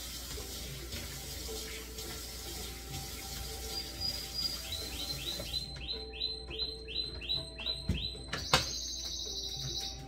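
Water running from a kitchen faucet into a small sink, with a steady hiss that stops abruptly about halfway through. Then a quick, even run of high chirps, about two or three a second, and a warbling high tone near the end.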